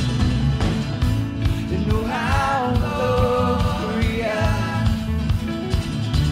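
Worship band music: drums keeping a steady beat under sustained chords, with a singing voice carrying a melody from about two seconds in until about four and a half seconds.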